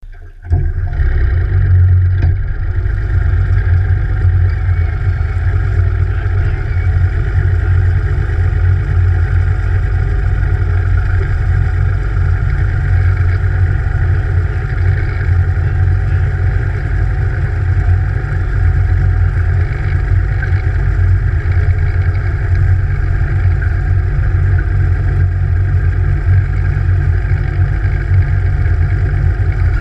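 Evinrude E-TEC 150 HO outboard, a two-stroke direct-injection V6, running steadily while pushing the boat along, with a loud, even low drone and no change in pitch.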